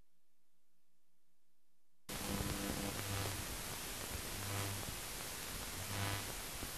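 Near silence, then about two seconds in a loud steady hiss like static cuts in suddenly. A low hum swells in it three times.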